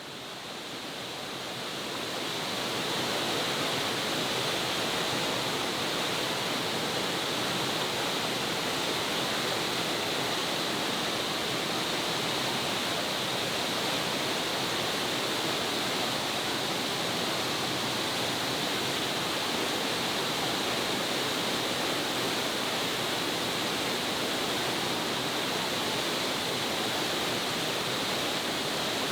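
Sgwd yr Eira waterfall: the steady rush of falling water, swelling up over the first few seconds and then holding even.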